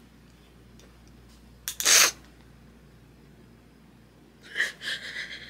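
A woman crying: a loud, sharp intake of breath about two seconds in, then broken, halting sobs near the end.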